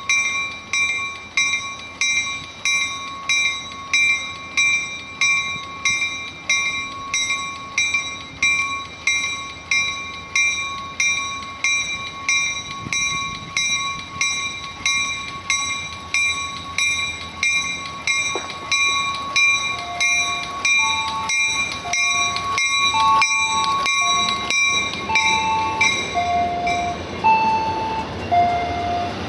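A railroad warning bell ringing steadily, about one and a half strikes a second. It stops near the end. From about two-thirds of the way in, a second signal joins it, alternating between two lower notes about once a second.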